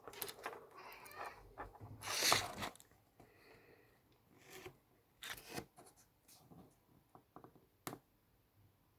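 Handling noise: rustling and scraping for the first few seconds, then a run of short, sharp clicks.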